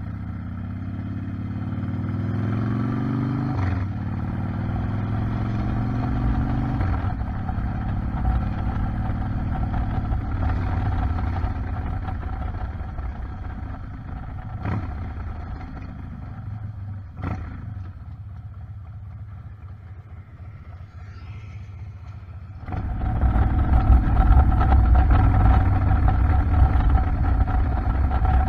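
Motorcycle engine heard from a helmet-mounted action camera, rising in pitch as it accelerates and dropping back at gear changes about 4 and 7 seconds in, then easing off. Near the end it jumps suddenly to a louder, rougher rush of engine and wind.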